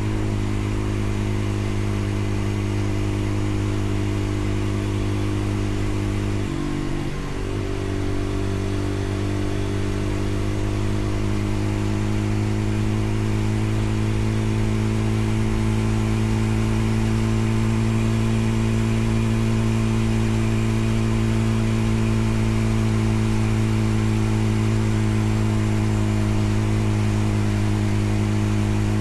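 Vehicle engine running at a steady speed while under way, with a brief dip and break about seven seconds in, like a gear change.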